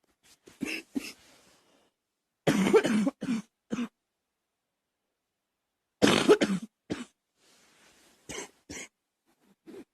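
A girl coughing in separate fits: a few small coughs at the start, a loud run of coughs about two and a half seconds in and another about six seconds in, then two short coughs near the end.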